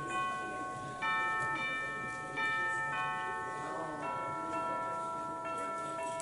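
Slow keyboard music of bell-like struck notes in a middle-to-high register. Each note rings on and overlaps the next, with a new note about every half second to second.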